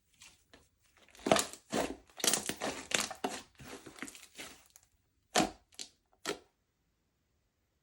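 Crunching and crackling as slime and makeup are worked by hand: a dense run of sharp crackles and snaps, then three separate snaps near the end.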